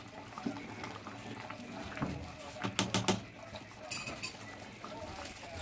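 A ladle stirring thick rice porridge in a pot, scraping and knocking against the pot, with a quick run of knocks about three seconds in; the porridge bubbles at a boil underneath.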